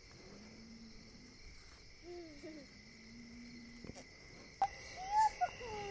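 Crickets chirring in a steady chorus, with two faint, long, low calls of distant cows mooing. Near the end a sharp click, after which a higher, pulsing insect chirr joins in.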